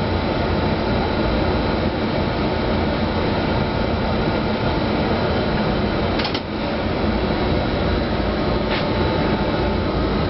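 Steady hum and whir of a DB class 189 electric locomotive's equipment heard inside its cab, with a thin high whine on top. There is a brief click about six seconds in and a fainter one near nine seconds.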